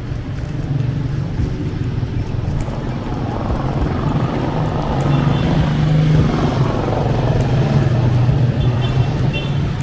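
Street traffic: a motor vehicle engine running with a steady low hum, getting louder past the middle as it draws near. A few short high beeps sound about halfway through and again near the end.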